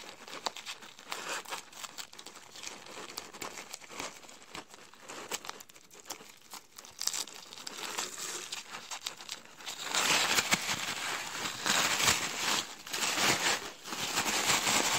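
Tissue paper wrapping and crinkle-cut paper shred rustling and crinkling as a wrapped item is handled in a cardboard box and unwrapped. The crinkling is soft and sparse at first and becomes louder and denser about ten seconds in.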